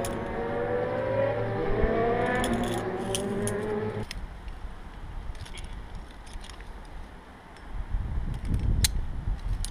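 An engine running with its pitch rising, as of a vehicle accelerating, which stops abruptly about four seconds in. In the last two seconds, wind buffets the microphone with a low rumble.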